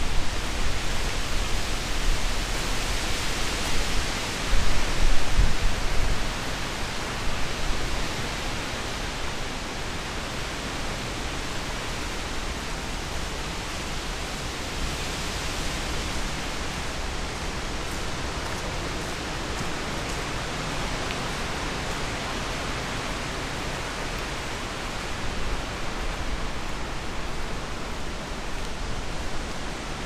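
Wind blowing: a steady rushing hiss, with gusts buffeting the microphone in the first six seconds and easing after that.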